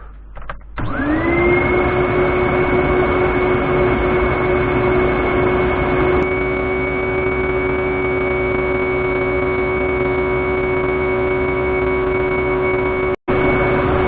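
Axminster wood lathe and workshop dust extraction starting up about a second in: a whine that rises as the motor spins up, then runs steadily over a rushing of air. The sound cuts out for an instant near the end.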